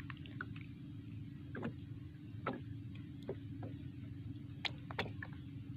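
Small scattered clicks and ticks of hands handling a fishing hook and live shrimp bait, with two sharper clicks near the end, over a steady low hum.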